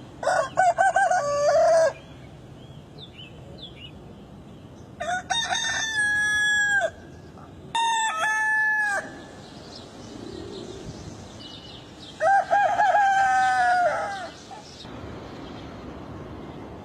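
Rooster crowing four times, each crow a long stepped cock-a-doodle-doo of a second and a half to two and a half seconds, spaced a few seconds apart.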